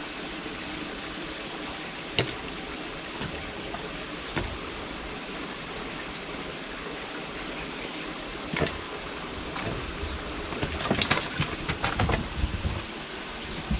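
Steady background hiss with a few single light knocks, then a quick run of knocks and taps near the end.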